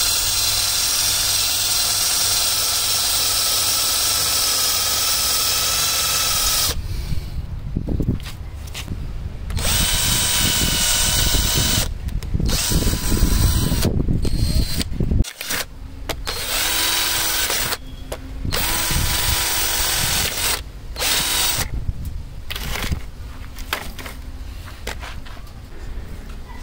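Foster FK 38-21 21V cordless drill running with its bit grinding into hard, dry wood: a steady motor whine for about seven seconds, then started and stopped in repeated short bursts. The drill is short of power for such hard wood; the bit spins and goes in only a little.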